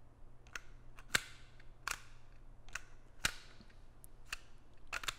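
Pistol being drawn from and pushed back into a polymer competition holster with its lock set to minimum draw tension: about nine sharp clicks, irregularly spaced, as the lock releases and catches.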